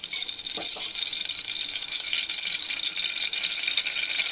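Steady hiss of a lit gas stove burner heating an aluminium pressure cooker with a little oil in it.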